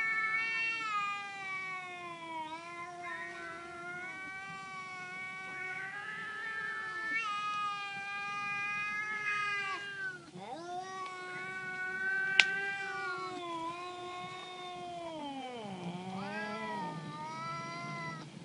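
Cats yowling at each other in a territorial standoff with an intruding cat: long, drawn-out wavering howls that slide up and down in pitch, almost unbroken, dropping low near the end. A single sharp click about twelve seconds in.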